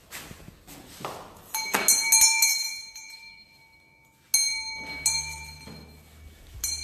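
A bell-like chime rings out four times, each strike starting suddenly and fading away.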